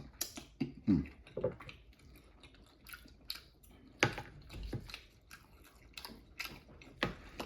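Close-miked eating: chewing and wet mouth sounds made of many small sharp clicks, with a few louder soft thuds about one, four and seven seconds in.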